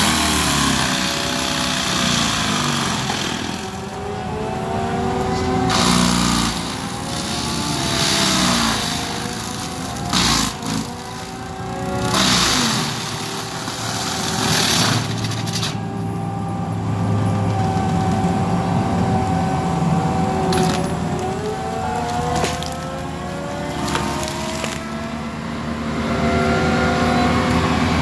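ASV RT-120 compact track loader with a forestry mulcher head grinding into the trunk of a large pine. The engine note rises and falls as the load changes, and the mulcher's teeth chew the wood in repeated loud bursts of grinding, several times over.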